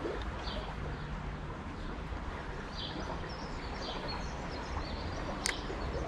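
Steady outdoor background noise with short bird chirps every second or so, and one sharp click about five and a half seconds in.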